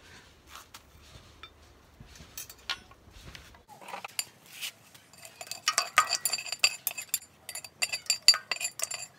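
Metal clinking and clanking of a Petromax FT3 cast-iron Dutch oven, its wire bail handle and lid being handled. A few faint knocks come first, then from about halfway a quick run of sharp, ringing clinks.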